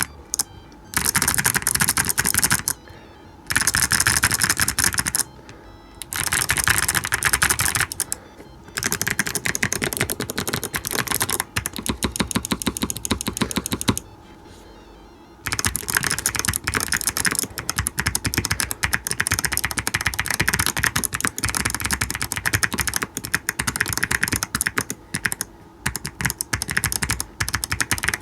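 Fast typing on a MelGeek O2 low-profile mechanical keyboard: rapid key clicks come in bursts of a few seconds with short pauses, then run almost without a break through the second half.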